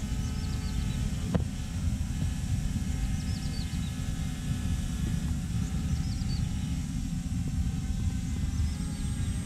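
A steady low rumble dominates, with the faint steady hum of an SG108 quadcopter drone flying high overhead. A few short, high, falling chirps come and go.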